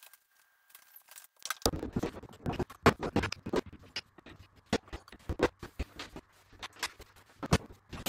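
Irregular metallic clicks, knocks and scrapes from a two-piece prop shaft being fitted up under a car, starting about a second and a half in after a quiet moment.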